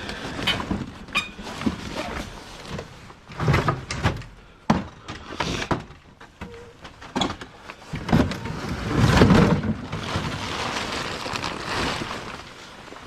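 Scrap being rummaged through and moved by hand: a run of knocks and clunks, then a longer stretch of scraping and rustling about eight seconds in.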